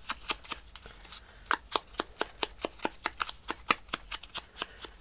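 Quick, even taps of a foam ink blending tool dabbing ink onto the edge of a small paper circle, about four or five a second.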